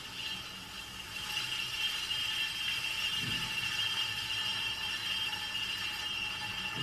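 Electric pottery wheel running, its motor giving a steady high whine that grows louder about a second in, while wet clay is pulled up into an espresso cup.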